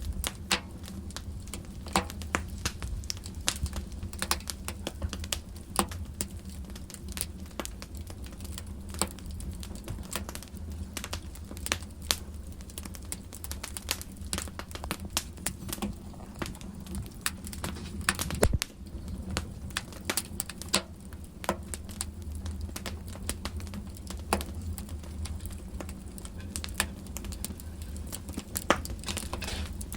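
Fire burning in a fireplace, crackling with irregular sharp pops and snaps, a few louder than the rest, over a low steady rumble.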